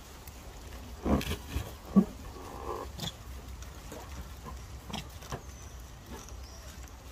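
An inflated rubber balloon being bitten and handled by a baby macaque: short rough rubbery noises, loudest about one and two seconds in, then a few faint clicks.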